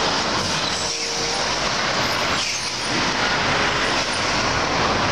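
Road traffic noise as an articulated fuel tanker truck drives past: a steady rush of tyres and engine, swelling slightly about halfway through.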